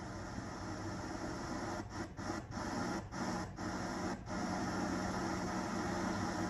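Steady hiss and low hum of a videotape playing with no recorded sound. Several brief dropouts come between about two and four seconds in.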